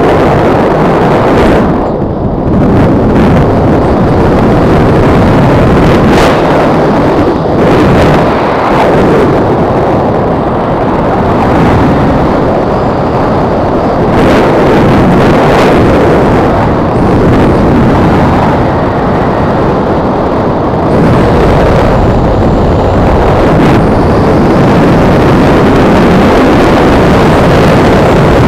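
Wind buffeting the microphone of a helmet camera during a descent under an open parachute: a loud, rough, steady rush with a few brief lulls.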